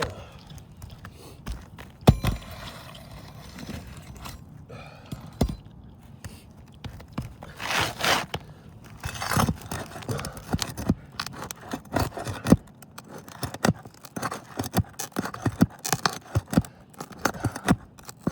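Flat pry bar worked under roof shingles to get the nails out: metal scraping and clicking against the shingles and nails, with a sharp knock about two seconds in and a busy run of clicks in the last few seconds.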